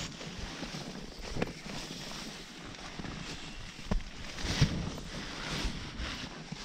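Steady rush of wind noise on the microphone, with a few soft thumps and crunches about a second and a half in and around four seconds in from boots shifting on snow-covered ice.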